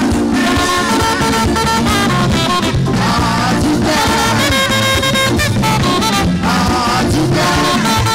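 Upbeat live praise music: a saxophone plays the melody over a band with drum kit and bass, keeping a steady dance beat.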